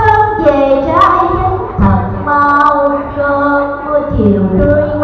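A woman singing a Vietnamese folk-style song into a microphone, holding long notes and sliding between pitches.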